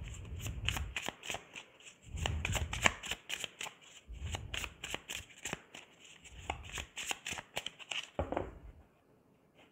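A deck of tarot cards shuffled by hand: a rapid run of card flicks and riffles, with a soft low bump about every two seconds as the cards are gathered. The shuffling stops shortly before the end.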